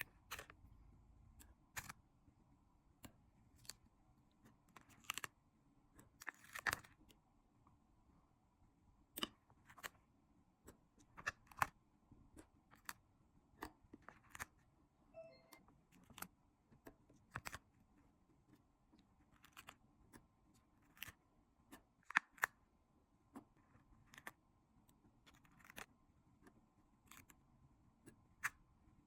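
Paper stickers being handled, peeled and pressed down: soft, irregular clicks and light crackles, roughly one a second, over a quiet background.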